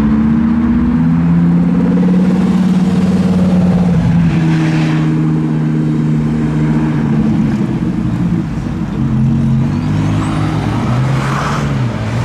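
Lamborghini Huracán Performante's V10 engine pulling away at low revs. Its note climbs in pitch over the first couple of seconds, holds steady, then eases off to a lower, quieter drone from about eight seconds in.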